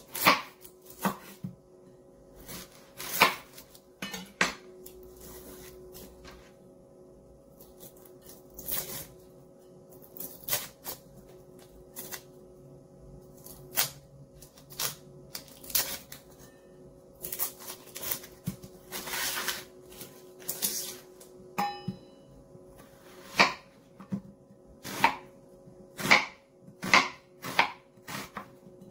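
Chef's knife knocking on a plastic cutting board as an onion is trimmed, peeled and sliced: irregular sharp taps of the blade hitting the board, with dry onion skin rustling as it is peeled off in the middle. Near the end the cuts come faster, about one a second.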